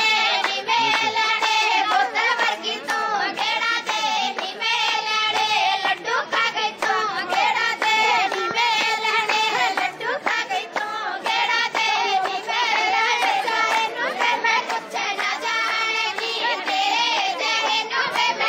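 High women's voices singing a song together, with hand clapping along.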